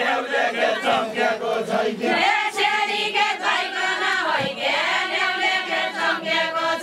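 A group of villagers singing a deuda, the Far-Western Nepali folk song, together in a chanted chorus of many voices.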